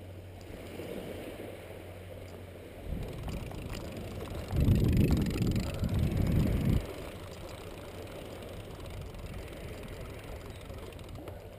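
Wind rumbling on an action camera's microphone, with one stronger gust lasting about two seconds near the middle.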